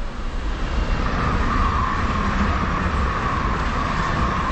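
Two coupled Pesa Elf II electric multiple units passing close at speed: a loud, steady rush and rumble of wheels on rail with a higher whine running over it. It builds up over the first second as the train arrives.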